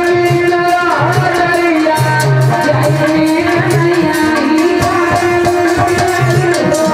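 Live Indian folk music: a woman singing over sustained melody notes, with a hand drum beating out a repeating rhythm and jingling percussion keeping a steady pulse.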